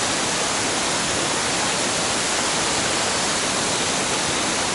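Waterfall falling: a steady, loud rush of water.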